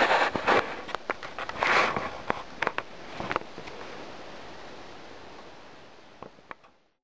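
Rustling and handling noise from a hand-held camera brushing against clothing and forest undergrowth, with scattered sharp clicks. After about three and a half seconds it settles to a steady faint hiss, with two more clicks, and fades out at the end.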